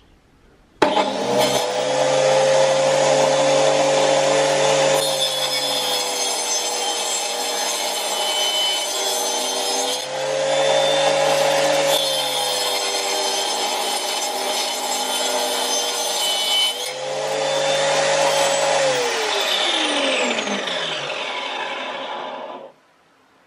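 Angle grinder fitted with a toothed circular saw blade, run as a table saw, switches on and runs with a steady high whine. Twice the pitch sags as the blade saws through chipboard. Near the end it is switched off and winds down with a falling whine.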